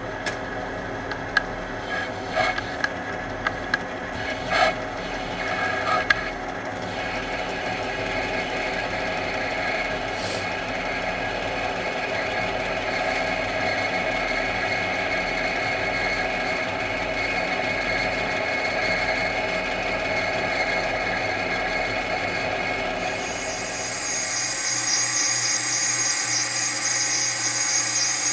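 Metal lathe running steadily with a small grooving tool cutting a brass workpiece, with a few sharp clicks in the first several seconds. Near the end the low drone thins and a high, hissing cutting sound comes in.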